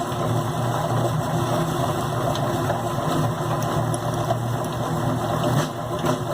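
Old two-frame honey extractor spinning frames of comb, a steady mechanical hum and rattle of the drum, flinging honey out of the uncapped comb.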